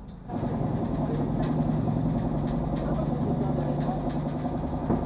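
An engine running steadily, starting abruptly just after the beginning, with a few light clicks of metal tools over it.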